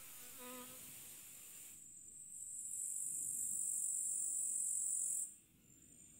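A cricket-type insect trilling high and steady. It starts about two seconds in and stops abruptly near the end, with a softer outdoor hiss before it.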